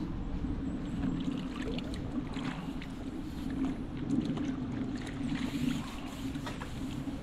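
A small silverfish splashing and thrashing at the water's surface as it is drawn into a landing net, with repeated short splashes and water dripping off the net. A steady low rumble lies underneath.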